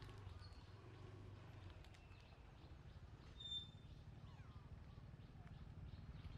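Near silence outdoors: a faint steady low rumble, with a few faint high chirps and one short, brighter chirp about halfway through.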